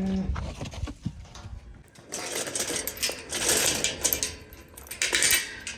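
Metal livestock gates and latches rattling and clanking in a rapid clatter for a few seconds, as gates are handled to move a calf between pens. It opens with the end of a calf's moo.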